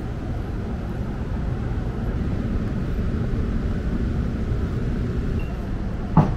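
Low, steady rumble of a light-rail tram running on street track, with one sharp clack just before the end.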